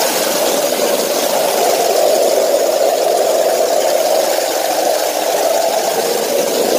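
Water pouring steadily from the overhead spouts of a pool's waterfall feature and splashing down right in front of the microphone, an even rushing noise.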